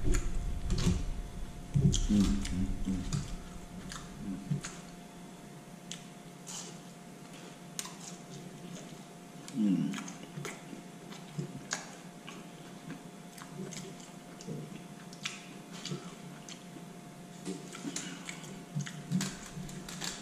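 Close-miked eating sounds: scattered wet mouth clicks and smacks while chewing, with a brief murmur about ten seconds in. A faint steady hum runs underneath.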